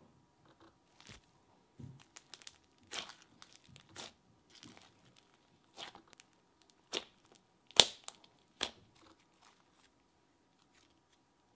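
Foam-bead slime being pressed and stretched by hand, giving irregular sharp bubble pops, the loudest nearly eight seconds in.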